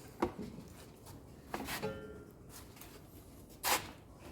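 Handling knocks and rubbing of a front-load washing machine's tub and drum assembly being moved by hand: a few light knocks, then a sharper, louder knock near the end.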